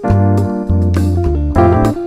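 Background music: a keyboard melody, piano-like, with deep bass notes changing about every half second.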